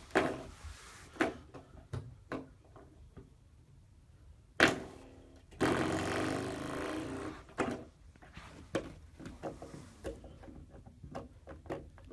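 Corgi puppy knocking and scratching at a wall and wooden baseboard. Irregular knocks and thumps, the loudest about four and a half seconds in, followed by a rougher noise lasting about two seconds.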